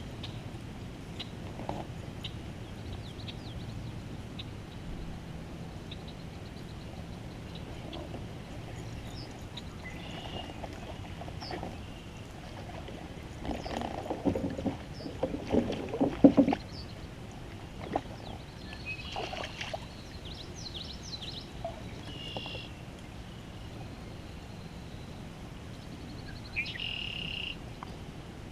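Fishing kayak on the water: a steady low background, broken about halfway through by a cluster of knocks and clunks from gear being handled in the boat. A few short high chirps come later.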